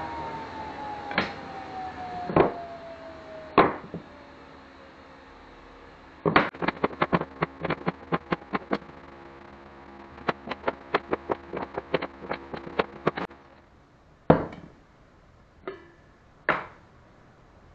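Hardwood cutting-board blocks knocking and clacking against each other and the wooden bench top as they are laid out and shuffled into a pattern: a few single knocks, then a quick run of many knocks and clicks in the middle, and a few louder single knocks near the end.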